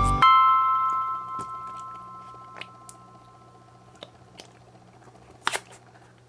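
Background music ends on a chord that rings and fades over the first two seconds. Then faint handling sounds: scattered light clicks and soft squishes as slime is pressed into a silicone ice pop mold, the loudest about five and a half seconds in.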